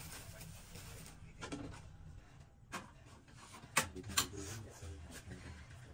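Plastic hamster wheel turning with a low rumble and scattered clicks and knocks as dwarf hamsters run in it. The sharpest knocks come about four seconds in, as the wheel comes to rest.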